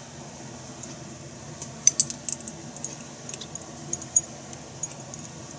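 Chopsticks clicking against a glass jar and a small ceramic plate as pickled shallots (rakkyo) are lifted out and set down. A few sharp, light clicks, scattered, with the loudest about two seconds in.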